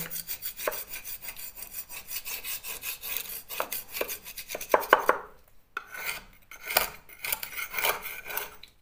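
A steel scraper scraping loose, powdery plaster off a wall in a run of short strokes, with a brief pause about five seconds in.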